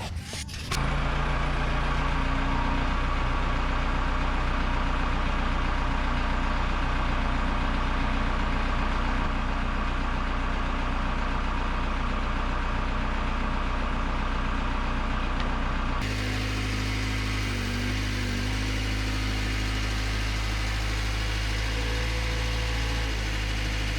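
Backhoe engine running steadily. It cuts in abruptly about a second in, and its tone shifts suddenly about two-thirds of the way through.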